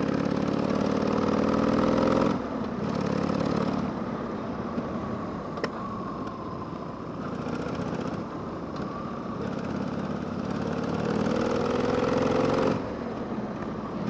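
Harley-Davidson Sportster's V-twin engine under way, its pitch rising as it pulls and then dropping suddenly about two seconds in; it runs on steadily with road and wind noise, pulls up again and drops off once more near the end.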